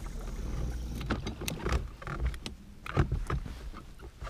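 Irregular clicks and knocks from handling a spinning rod and reel, over a low rumble.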